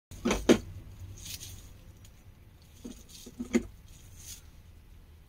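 Plastic knocks and clicks as a plastic stand base is fitted onto the plastic back of an all-in-one computer: two sharp knocks about half a second in, then a few more around three to three and a half seconds, with light scraping between.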